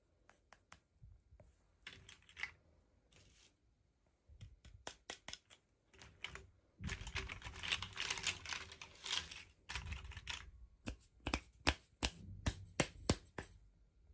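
Hands handling plastic toy packaging and small doll pieces: scattered sharp clicks and taps, a longer stretch of rustling from about seven to ten seconds in, then a quick run of clicks near the end.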